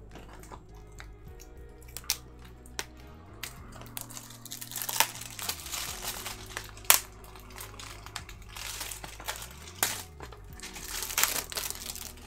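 Plastic shrink wrap crinkling and tearing as it is peeled off a Blu-ray case, in several bouts, with sharp clicks and taps from handling the case; the loudest click comes about seven seconds in. Faint background music plays underneath.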